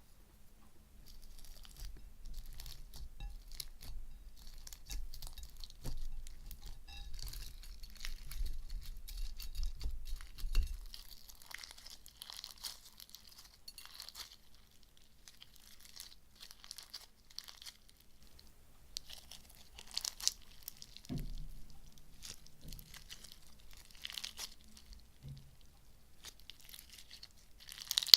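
Crunchy gold-leaf slime being squeezed and stretched by hand, giving dense crinkling and crackling, with a low handling rumble under it for the first ten seconds or so, then sparser crackles.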